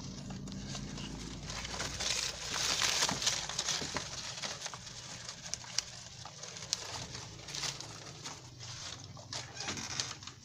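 Rabbits munching leafy green fodder: crisp crunching and rustling of leaves with many small clicks. The rustling is loudest about two to four seconds in and thins toward the end.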